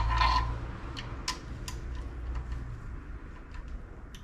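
A short metallic rattle, then scattered sharp metal clicks and ticks at irregular intervals, as small bolts and hand tools are handled and set against the engine.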